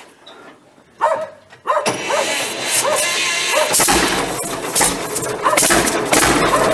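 1951 John Deere G's two-cylinder gasoline engine being started: irregular noises first, then it catches a little over halfway through and runs with a low, pulsing beat.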